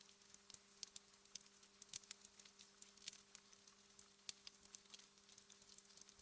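Wood fire in a fireplace crackling faintly, with quick irregular small pops and snaps throughout, over a faint steady low hum.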